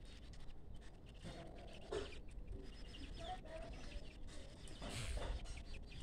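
Chickens clucking in short, scattered calls over a steady low rumble of wind on the microphone.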